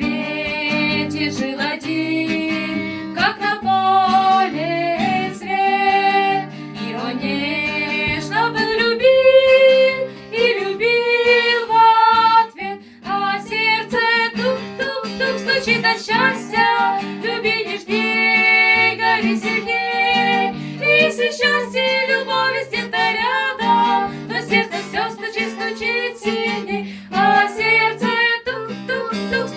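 A woman singing a song, accompanied by acoustic guitar.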